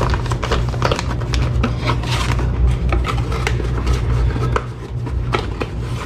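Cardboard parts boxes and plastic-wrapped parts handled and shifted on a wooden tabletop: scattered knocks, taps and rustling, over a steady low hum.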